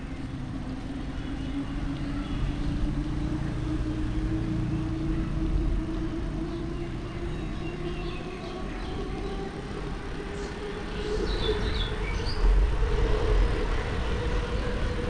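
Riding along wet asphalt: steady tyre hiss on the wet road and wind rumble on the microphone, with a hum that rises slowly and steadily in pitch and grows louder near the end.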